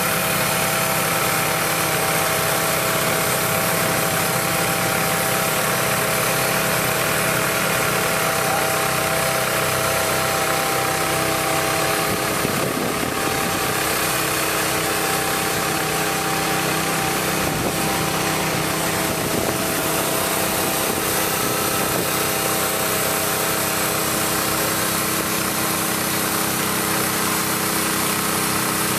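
Engine idling steadily, a constant mechanical drone with several steady tones that holds without change.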